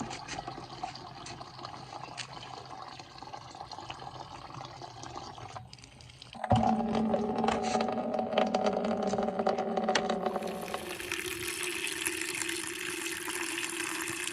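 Water running and pouring into a container, with scattered clicks and knocks of handling. It becomes much louder and fuller about six and a half seconds in.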